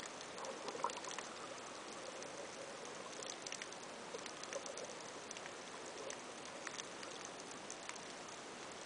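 Underwater ambience picked up by a submerged camera over a coral reef: a steady hiss dotted with many small, sharp clicks and crackles.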